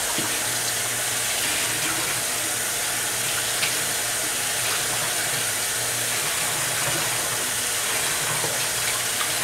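Tap water running steadily from a faucet and pouring through a bundle of human hair extensions as it is wetted before shampooing.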